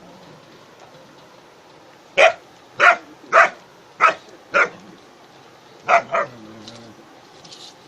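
German Shepherd barking: five loud barks about half a second apart, then a pause and two more in quick succession.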